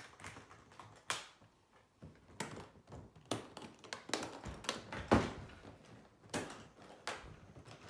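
Latches on a Bobelock 2000W hard-shell cello case being flipped open one after another: a string of sharp clicks and knocks, with the loudest about five seconds in, as the case is handled.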